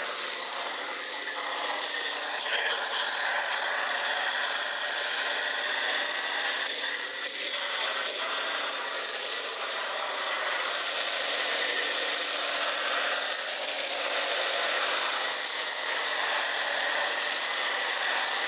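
MTM Hydro PF22.2 foam cannon on a pressure washer spraying snow foam: a steady, even hiss of the foam jet, with a low steady hum from the pressure washer under it.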